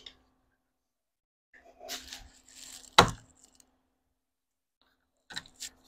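Workshop handling noises from building wooden benchwork: a scrape and rustle, one sharp knock about three seconds in, then two short clicks near the end.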